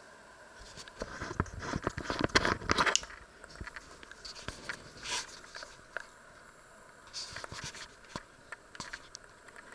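Handheld camera being picked up and moved: a quick run of knocks, clicks and rustles about a second in, the loudest part, then scattered single clicks and taps as it is carried.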